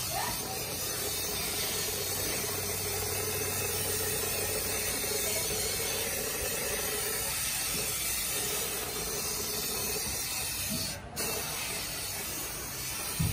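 Compressed air hissing steadily through a handheld electrostatic powder-coating gun as it sprays powder coat, breaking off for a moment near the end.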